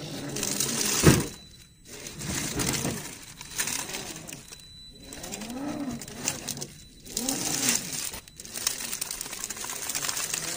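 RC rock crawler's brushed 550 electric motor and gearbox whining, rising and falling in pitch with the throttle, while dry leaves crackle and crunch under the tyres on rock. A sharp knock about a second in.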